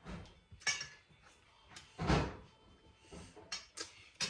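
Household objects being handled: a series of knocks and clunks, the loudest about two seconds in.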